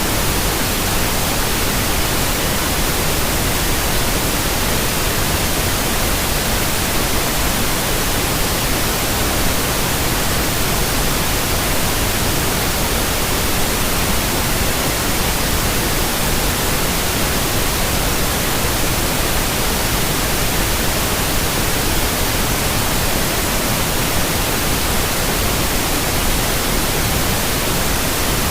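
Steady sleep-aid white noise: an even, unbroken hiss spread across all pitches, with no change in level.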